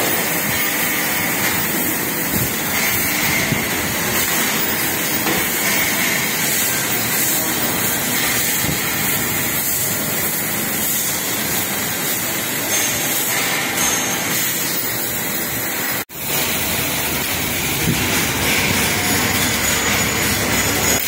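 CNC hydraulic press brake running, giving a steady, even hiss-like machine noise. The sound cuts out for an instant about three-quarters of the way through.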